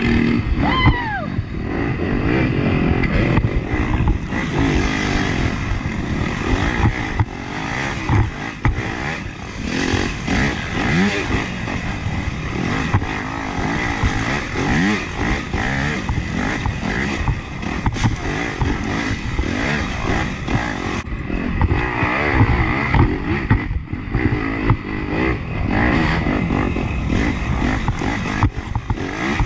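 Off-road dirt bike engine revving up and down continuously as it is ridden hard along a twisting woods trail, with frequent knocks and rattles from the bike hitting rough ground.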